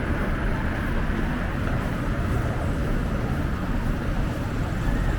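Steady outdoor urban street noise: a low, even rumble of road traffic with no distinct events.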